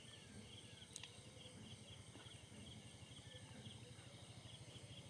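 Near silence: faint outdoor ambience by the water, with a single light click about a second in.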